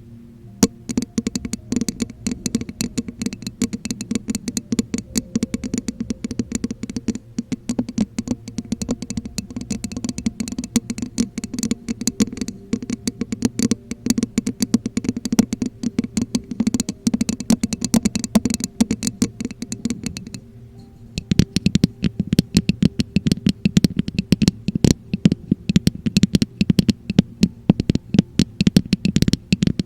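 Rapid fingertip tapping and scratching close to the microphone, many small clicks a second. It pauses briefly about twenty seconds in, then picks up again.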